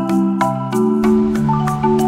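Background music: a bright melody over held chords and a bass line, with a steady beat of about three ticks a second.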